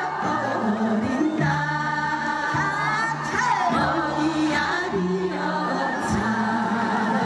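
A group of women singing a Gyeonggi minyo (Korean folk song) in unison through stage microphones, with sliding, ornamented vocal lines over an accompaniment of held bass notes that change about once a second.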